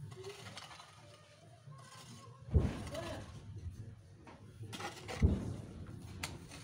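A hoe blade striking into dry, lumpy soil twice, about two and a half seconds apart, each hit a sharp thud followed by a brief scrape of loose earth.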